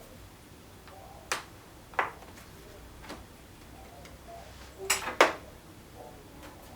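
Sharp clicks and taps of a laptop's plastic case and small tools being handled during a RAM and SSD upgrade. There are single clicks about a second in, at two seconds and at three seconds, and a louder quick cluster of three a little after halfway.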